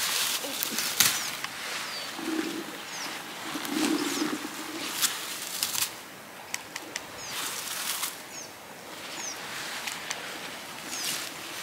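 Berry-picking comb swept through wild blueberry bushes, the leaves and twigs rustling and swishing in repeated uneven strokes as the berries are combed off.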